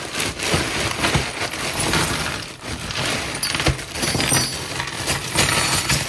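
A bag of loose bolts and small metal parts being handled and sorted through, with continuous clattering and jingling made up of many small clinks.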